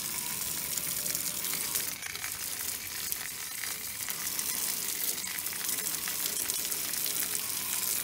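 Water from a garden hose spraying against the coil fins of a central air conditioner's outdoor unit: a steady hiss with crackling spatter.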